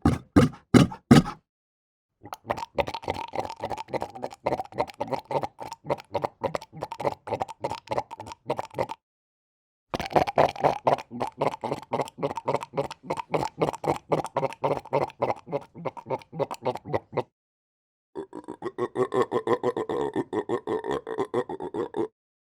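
Cape fur seal calling in runs of rapid short pulses, several a second. The runs come in four bursts, each broken off by a sudden silent gap, and the last has a steadier, more tone-like quality.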